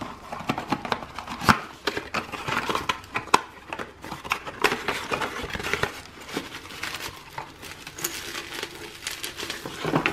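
Crinkly plastic wrapping rustling and crackling as a glass ball ornament is pulled out of its cardboard box, with irregular sharp clicks and small taps from handling the box.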